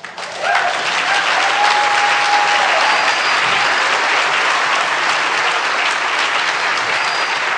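Audience applauding, a dense steady clapping that swells in within the first half second and holds.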